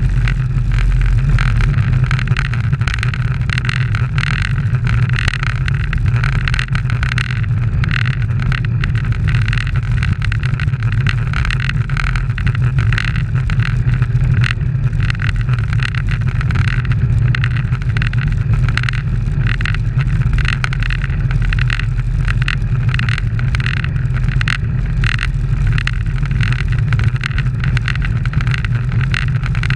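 Steady wind rush and buffeting on an action camera's microphone while it rides with a bunch of road racing cyclists: a constant low rumble with a fluttering hiss above it.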